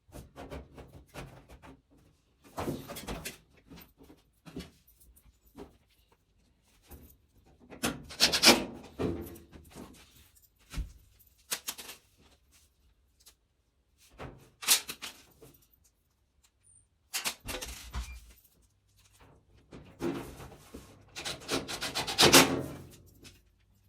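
Irregular rubbing, scraping and knocking as parts are handled during dryer repair work, coming in several separate bouts with pauses between and a single sharp knock partway through; the busiest bouts come in the middle and near the end.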